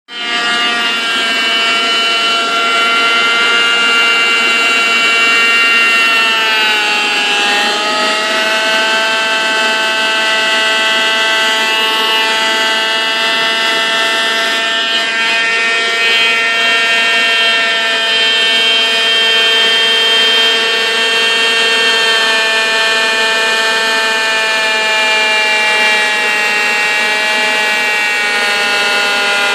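Hoover Elite vacuum cleaner motor running flat out with a loud, high, many-toned whine. Its pitch dips and recovers about seven seconds in, then holds steady. The motor is being run until it burns out.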